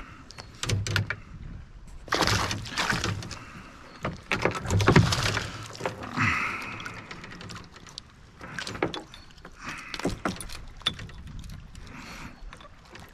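Irregular splashing and scattered knocks and clicks around a fishing kayak, in bursts that are loudest about two and five seconds in.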